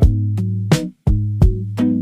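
Instrumental R&B/soul-jazz music with no vocals: a sustained bass line and plucked guitar chords over a drum beat, one hit about every three quarters of a second.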